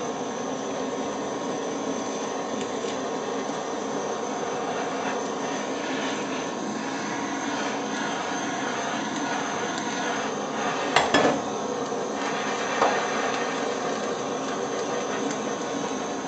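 Handheld butane culinary torch hissing steadily as its flame sears the surface of a sous vide chicken breast, over the running hum of a sous vide immersion circulator. A couple of short knocks come about two-thirds of the way in.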